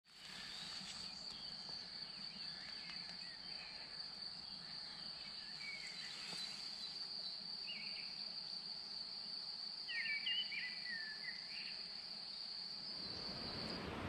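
Crickets trilling, one steady high-pitched note, with a few short bird chirps over it; the loudest chirps come about ten seconds in. Just before the end the trilling stops and the even rush of a stream takes over.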